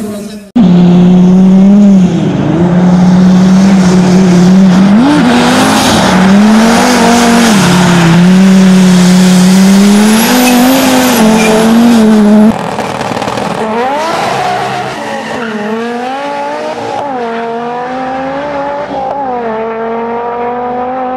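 Audi Sport quattro rally car's turbocharged five-cylinder engine running hard on snow, its pitch held high with short dips as the throttle is lifted. This is the loudest part. About twelve seconds in it cuts to a quieter car accelerating hard through the gears, its engine pitch climbing and dropping at each shift.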